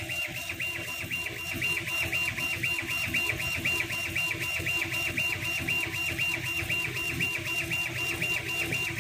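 CO2 laser engraving machine's head-drive motors whining in a fast, even back-and-forth rhythm, dipping and rising in pitch several times a second as the laser head raster-engraves.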